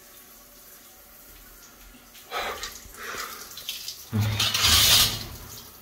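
Water from a handheld shower head running and splashing in a tiled shower stall. It comes in short splashes a couple of seconds in, then a loud rush of spray about four seconds in.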